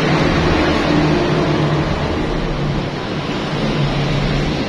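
An engine running steadily, with a constant rushing noise over it.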